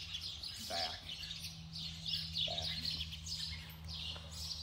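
Small birds chirping and twittering in many short, quick calls, over a steady low hum.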